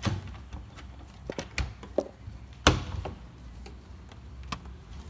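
Knocks and clicks of a rack case being handled as its removable front panel is worked loose, irregular and separate, the loudest about two and a half seconds in.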